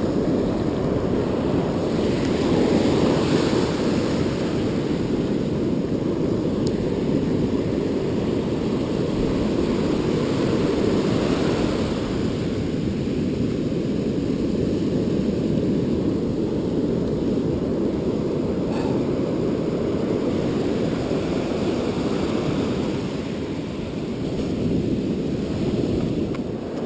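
Rough ocean surf breaking on the beach, with wind rumbling on the microphone: a steady low rush that swells and eases. A few faint clicks near the end.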